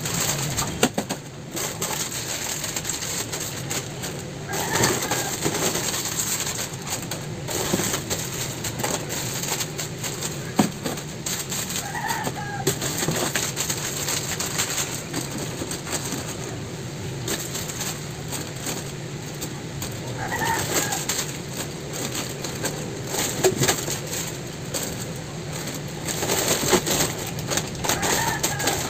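A bird calling briefly about every eight seconds, four times, over the rustle and clicks of plastic snack packets and small goods being handled.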